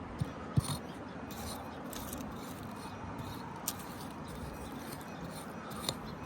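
A few short, sharp knocks and small scrapes from digging at a metal-detector target in river clay, over a steady background hiss.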